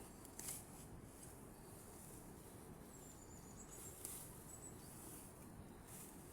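Near silence: a faint low background hush with a few brief, very high chirps and a thin high whistling tone near the middle, typical of insects at night.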